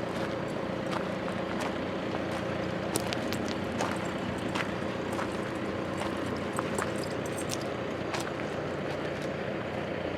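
A vehicle engine idling steadily, a low even hum, with irregular light clicks over it.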